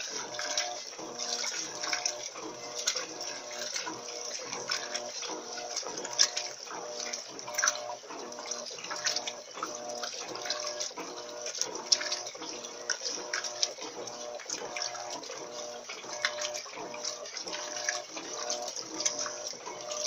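Electrolux LT13B 13 kg top-loading washing machine agitating a load in soapy water during its wash cycle: water sloshing and splashing around the drum, with the motor hum coming and going in short regular strokes as the agitator turns back and forth.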